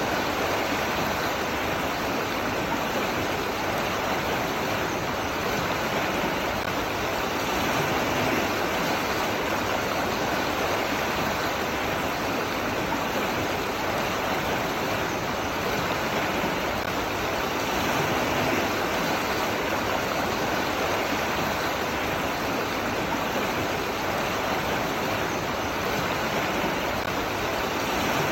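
Running water, a steady, even rush that does not change.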